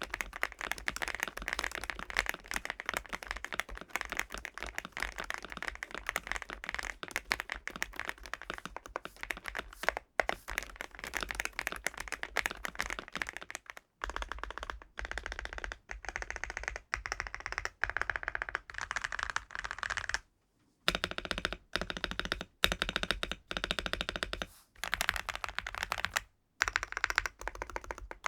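MCHOSE UT98 gasket-mounted mechanical keyboard being typed on: fast, continuous key clicks for about the first half, then bursts of typing broken by brief silent gaps.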